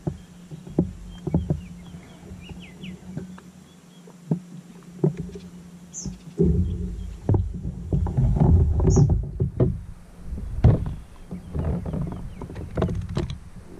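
Small waves lapping and slapping against a fishing kayak's hull, with wind buffeting the microphone and irregular knocks against the boat. A faint steady low hum runs underneath.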